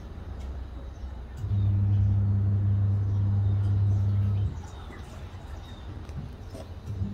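A steady low machine hum that comes on about a second and a half in and cuts off sharply about three seconds later, with faint bird chirps.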